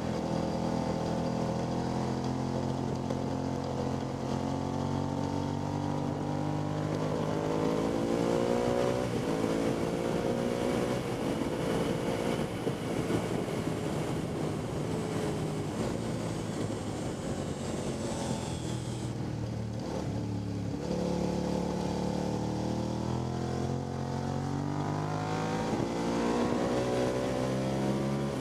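Motorcycle engine heard onboard at speed, its pitch climbing under acceleration and dropping back several times as the rider works through the gears, over a steady rush of wind noise.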